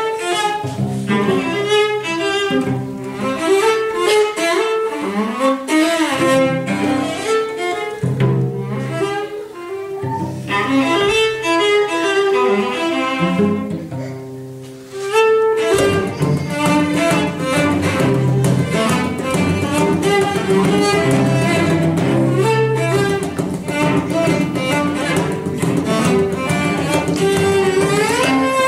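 Cello ensemble playing. After a brief dip about fifteen seconds in, the music turns fuller and busier, with fast repeated bow strokes.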